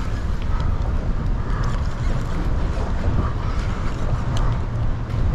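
Steady wind noise on the microphone, a low rumble, with water lapping against a small skiff's hull and a few faint ticks.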